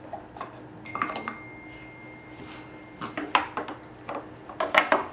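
Light knocks and clatters of hard objects being handled, coming in three short clusters, over a faint steady hum.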